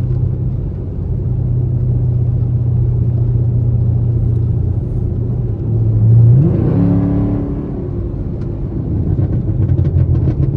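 Camaro SS's 6.2-litre V8 running steadily at a low cruise, then about six seconds in the revs jump quickly and hold higher for about a second before falling back. A few faint pops come near the end.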